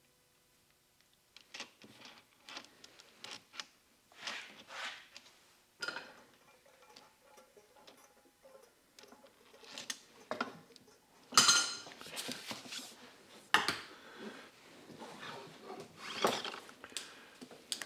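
Small metal parts and tools clinking and clattering as they are handled on a workbench, with two louder sharp knocks in the middle.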